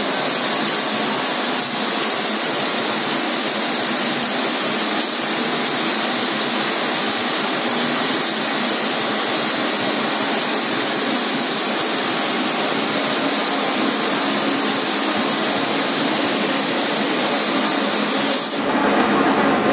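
Compressed-air paint spray gun hissing steadily as it sprays paint. The hiss cuts off near the end.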